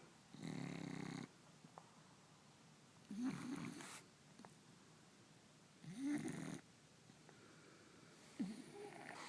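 French Bulldog snoring in his sleep: four rasping snore breaths, one about every two and a half to three seconds, some with a short wavering snort-like pitch.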